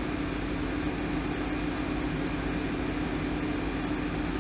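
Cabin sound of a MAN Lion's City Hybrid city bus: steady running noise with a constant droning hum and low rumble.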